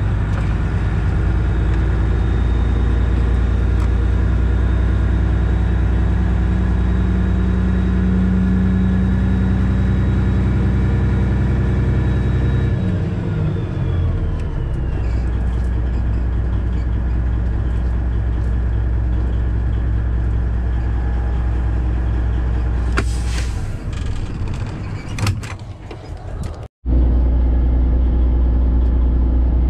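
Freightliner Classic XL semi truck's diesel engine running while driving, heard from the cab as a steady low drone. About halfway through, the engine pitch falls as the revs come down, and near the end there are several sharp clicks before the sound drops out for an instant and the drone resumes.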